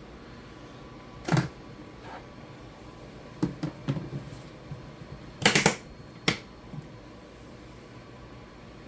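A handful of short, sharp clicks and knocks from kitchen containers and utensils being handled, the loudest a little past halfway.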